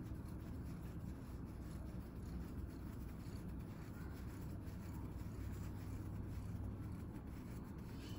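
Steady low background rumble with faint scattered light ticks and rubbing.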